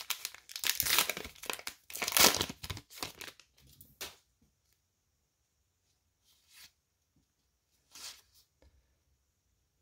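A 2019 Topps Heritage High Number baseball card pack being torn open, its crimped wrapper crinkling and tearing for about three seconds, then a few short, quieter rustles.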